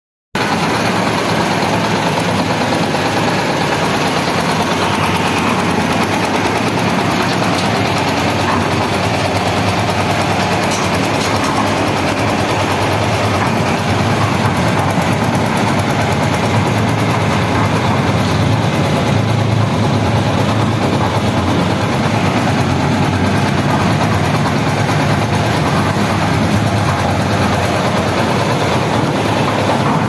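Small single-cylinder diesel engine of a hydraulic hopper concrete mixer running steadily at a constant speed.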